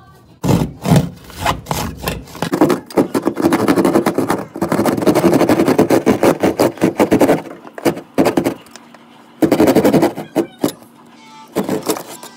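Hand jab saw sawing through drywall with rapid back-and-forth strokes, in several bursts with short pauses between them.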